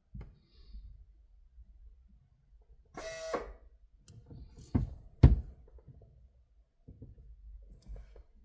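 A short burst, about half a second, of an angle drill spinning up, then two sharp knocks a moment later, the second the loudest.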